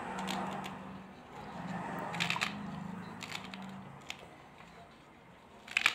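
Kitchen knife cutting through bunched pumpkin-leaf stems held in the hand: a few crisp snaps and crunches, the sharpest just before the end.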